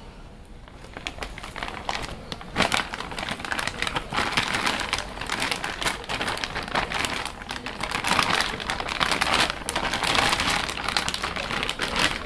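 Thin clear plastic bag crinkling and rustling in quick crackles as it is worked off a coilover strut by hand. It starts soft and gets louder and busier after about two seconds.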